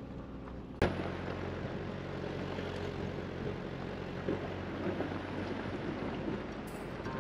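Wind buffeting the microphone outdoors, an even rushing noise with a low rumble. Under a second in it takes over suddenly from the hum of the vehicle's engine heard from inside the cab.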